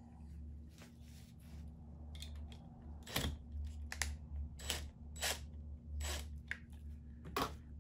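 Cordless impact driver running in about six short bursts as it runs down the screws on a screw terminal block, with small clicks of handling between them.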